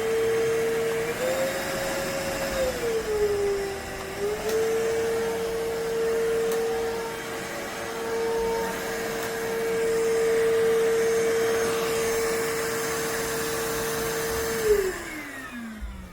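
iwoly C150 cordless stick vacuum running with a steady high whine over the rush of air. The pitch rises briefly and then dips about two to four seconds in. About fifteen seconds in it is switched off and the whine slides down as the motor spins down.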